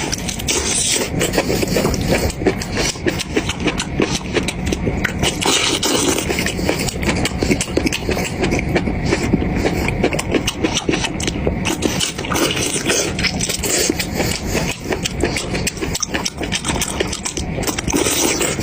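Close-miked eating sounds: continuous wet chewing and crunching with dense small clicks and crackles.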